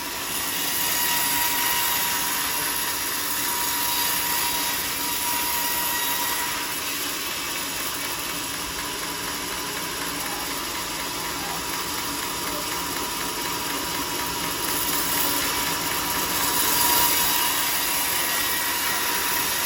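Sawmill running: a steady mechanical din with a constant high whine, growing a little louder about a second in.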